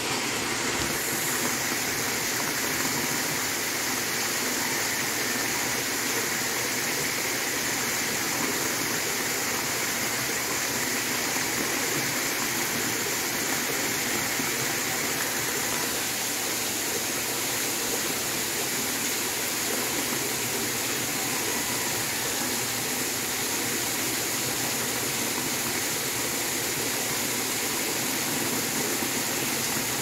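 Water spilling from a stone-wall spout into a small pool, with the pool water churning: a steady, even rush and splash of falling water.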